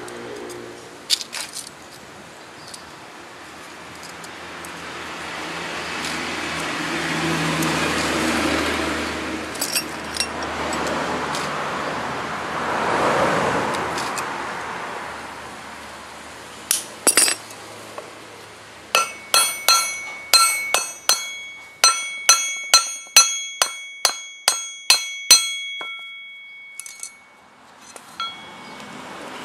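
Metal striking metal: about two-thirds of the way in comes a run of sharp taps, about two a second for some seven seconds, each leaving a clear ringing tone. Before the taps, a rumble swells and fades.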